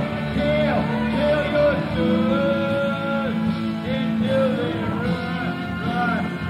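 Rock band playing live, electric guitars, bass and drums with a melody line bending up and down over them, heard on a muffled audience cassette recording.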